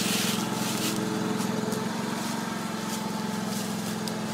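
Small engine of a log splitter running steadily, driving its hydraulics; its tone changes slightly about two seconds in.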